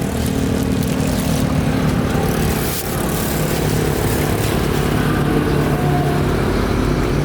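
Road traffic: motor vehicle engines running close by, a steady engine hum over the noise of the road, with a deeper drone growing stronger near the end.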